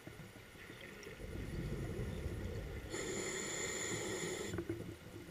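Scuba diver breathing through a Phoenix double-hose regulator, heard underwater: a low bubbling rumble of an exhalation, then about three seconds in a hissing, whistling inhalation through the regulator that lasts about a second and a half and cuts off sharply.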